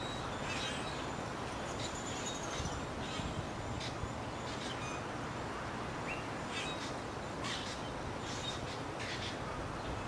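Wild songbirds chirping and calling in scattered short high notes, about a dozen over ten seconds, one of them a slightly longer arched call, over a steady background hiss.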